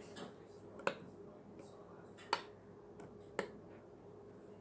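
Metal spoon clicking against a ceramic bowl three times while stirring thick slime, sharp single clinks about a second apart.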